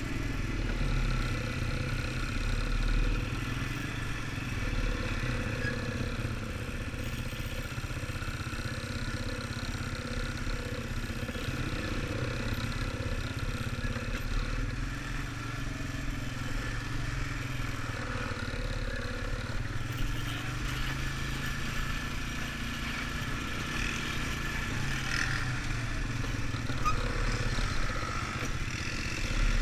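ATV (quad bike) engine running steadily while the machine rides along a dirt trail.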